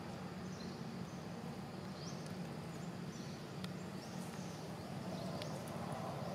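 Outdoor ambience: a bird repeating short, high, rising chirps every second or less, over a steady low hum.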